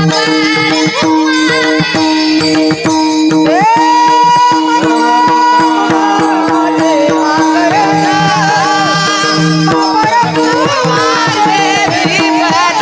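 Varkari kirtan music: a woman sings long, held, ornamented notes that rise and bend, over a steady drone. Pakhawaj drum strokes and jingling hand cymbals keep a steady beat.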